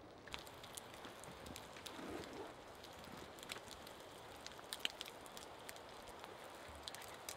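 Small smoky campfire crackling faintly: sparse, irregular pops and ticks over a low hiss.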